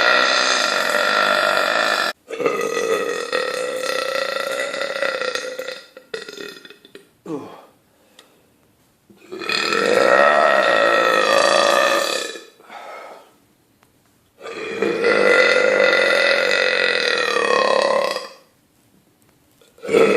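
A man belching on command: a run of long, drawn-out, loud belches, each lasting two to four seconds with short pauses between, and a few shorter belches in the middle.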